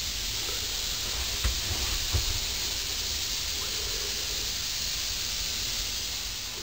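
Steady hiss over a low rumble, with two brief knocks about a second and a half and two seconds in.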